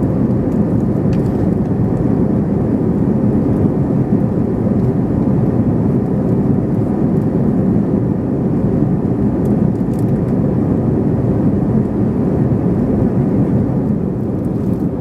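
Steady cabin noise of an Airbus A321ceo airliner in flight: engine and airflow noise heard from inside the passenger cabin, a deep even rush with no changes.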